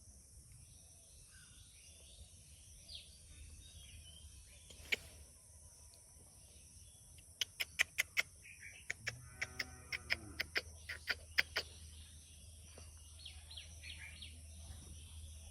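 Small wild birds chirping: scattered faint calls, then two quick runs of sharp, very short chirps about halfway through, over a steady low hum and hiss.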